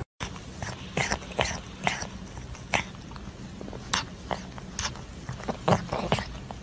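A cat licking and smacking at a catnip ball on a stick, making short wet clicks about once or twice a second, irregular and loudest near the end.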